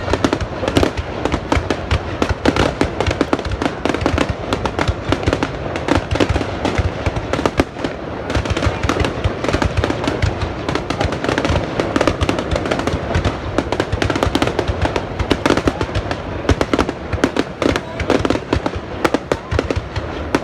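New Year fireworks going off in a dense, continuous barrage of bangs and crackles, many shots a second with no break.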